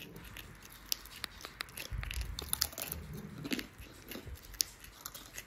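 Pet prairie dog nibbling and chewing a small dry snack held in its paws, close to the microphone: irregular sharp crunches and clicks, with a low dull rumble of handling about two seconds in.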